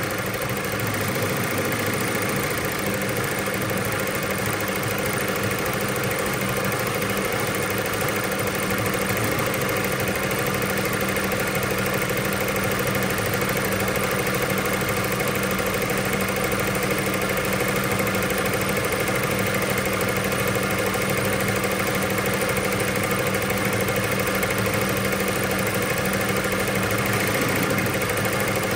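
ZSK multi-needle commercial embroidery machine running steadily as it stitches a design into fabric.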